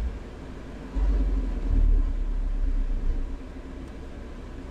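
Motorhome driving off, heard from the cab: a low engine and road rumble swells for a couple of seconds about a second in. Under it runs the steady hum of the cab air conditioner on full blast.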